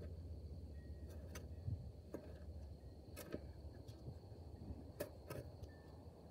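Steel shovel digging into hard clay soil, a handful of short sharp knocks and scrapes as the blade cuts in and clods are thrown onto the pile, heard faintly.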